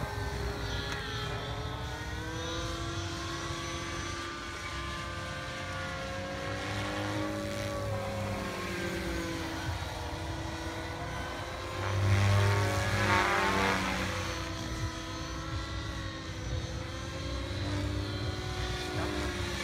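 Radio-controlled SAB Goblin helicopter with a three-blade main rotor flying overhead, its rotor and motor tone rising and falling in pitch as it manoeuvres. It is loudest around twelve to fourteen seconds in, as it passes closer.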